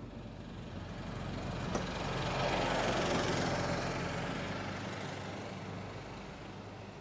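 A motor vehicle passing close by: its engine and road noise swell to a peak about three seconds in and then fade away, over a low steady hum.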